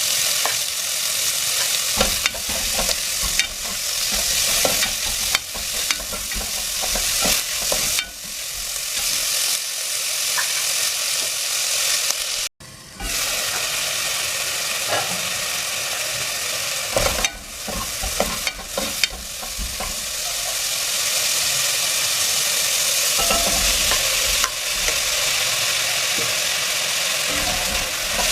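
Food frying in oil in a pan, sizzling steadily, with scattered clicks and scrapes of a utensil stirring it. The sound drops out for a moment about halfway through.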